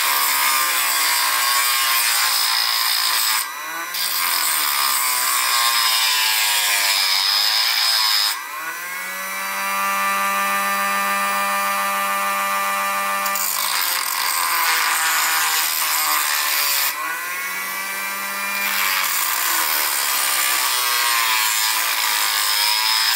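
Handheld rotary tool with a small grinding wheel running and grinding on metal, its whine sagging in pitch under load and climbing back several times. It is grinding away the crimped metal tabs that clamp the top plate of a speedometer's odometer frame.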